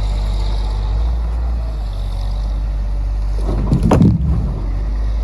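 1988 John Deere 690D-LC excavator's diesel engine running steadily, with a heavy knock and clatter about four seconds in.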